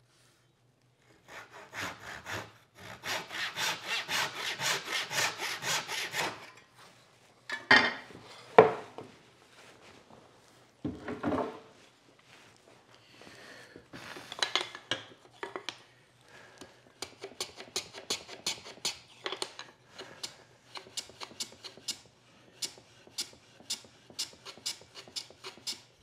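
Hand plane trimming the end of a wooden French cleat on a shooting board. A run of quick rhythmic strokes comes first, then a few louder knocks and scrapes as the piece is set again, then a long series of short, sharp strokes at about two a second.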